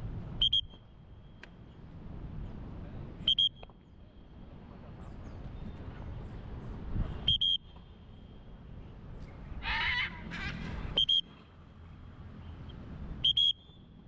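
A parrot giving five short, shrill screeches, one about every three seconds, with a longer wavering call about ten seconds in.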